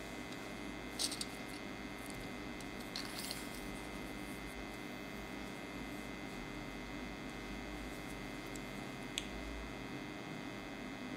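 Faint handling of a dan moi (Vietnamese jaw harp): a few soft clicks and rustles about a second in, around three seconds and near nine seconds, over a steady low electrical hum, as the instrument is picked up and set against the lips.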